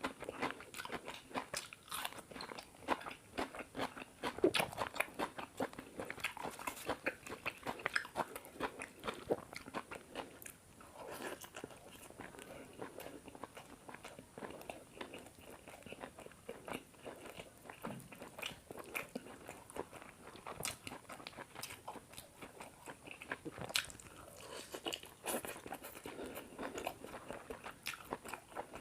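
Close-miked eating sounds: a person biting and chewing chicken curry with paratha, with irregular wet smacking and clicking mouth noises, busier in the first third and again near the end.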